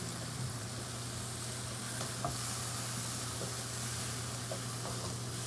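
Food sizzling steadily in a hot wok, stirred and tossed with a few faint light clicks. A steady low hum runs underneath.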